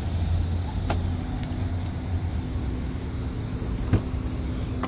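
Steady low outdoor rumble with a faint steady hum, and one sharp click about four seconds in as the Jaguar I-Pace's rear door handle is pulled to open the door.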